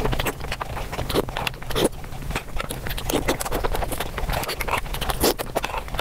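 Close-miked wet chewing and mouth smacking while eating soft, milk-soaked rasmalai, sped up so the clicks and smacks come in a fast, dense patter.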